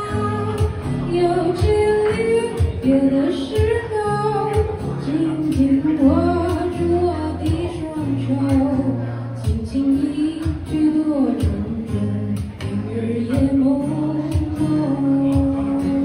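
A woman singing a slow song while playing chords on an acoustic guitar, performed live into a microphone.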